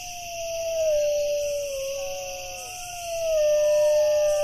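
Dogs howling: long, slowly falling howls from at least two dogs, the second coming in about two seconds in and overlapping the first.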